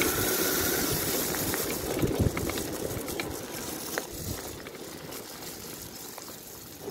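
Converted electric mountain bike rolling over a rough dirt and gravel trail: a steady rush of tyre and wind noise with scattered knocks and rattles over bumps, growing quieter after about two seconds as the bike slows. A faint steady whine stops about a second in.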